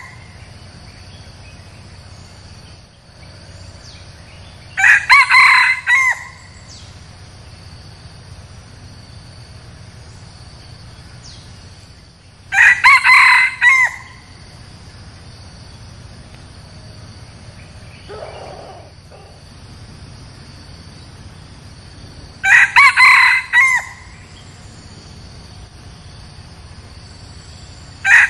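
Red junglefowl rooster crowing: three short, clipped crows about eight seconds apart, with a fourth starting at the very end. A steady high insect drone runs underneath.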